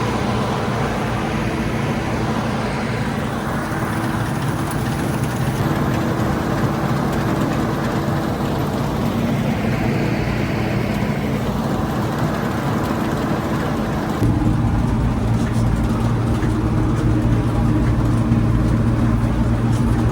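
Old Bizon combine harvester running: a steady diesel engine drone with the noise of its machinery. About 14 seconds in, the sound steps up abruptly, louder and with a heavier low hum.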